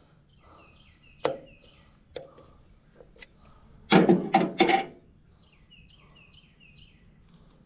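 Metal clanks and knocks from hands and tools working on a diesel tractor's fuel lines while air is bled out: three single knocks about a second apart, then a quick run of four loud clanks about four seconds in. A steady high insect drone runs underneath.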